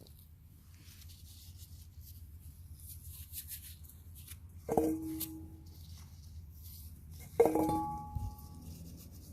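Two ringing clinks of hard objects knocking together, about two and a half seconds apart, over faint rustling.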